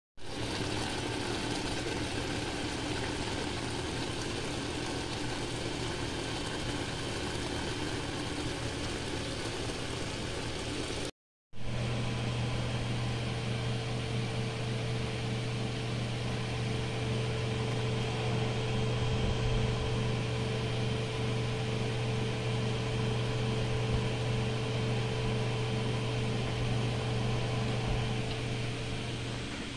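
Electric oven running with a steady low hum and a fainter steady tone above it. A short dropout about eleven seconds in, after which the hum is louder and steadier.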